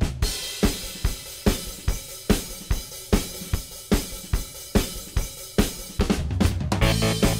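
Background music: a drum kit playing a steady beat with snare, bass drum and cymbals, joined by bass and other pitched instruments about six seconds in.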